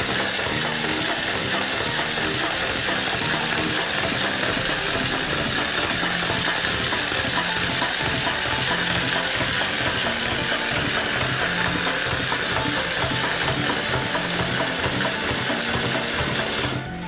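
Battery-powered toy hand's motor and plastic gears whirring and clicking steadily as it walks on its fingers across a wooden table, stopping suddenly near the end.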